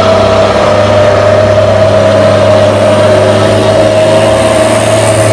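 Medium box truck's engine running as the truck drives along the road, with a steady whine held over the low engine note.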